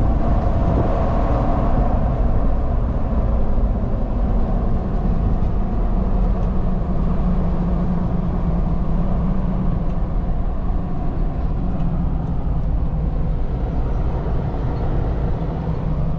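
Car driving at low speed, a steady low rumble of engine and road noise.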